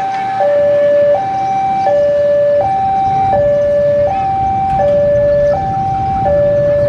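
A two-tone electronic warning alarm, switching between a high and a low tone about every 0.7 seconds, with a diesel locomotive's engine rumbling underneath and getting louder in the second half.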